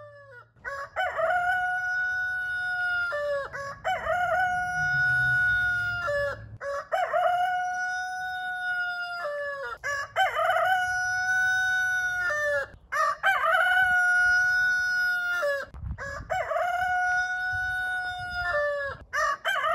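Rooster crowing over and over, about one crow every three seconds, each a long held call with a short rising start and a falling tail.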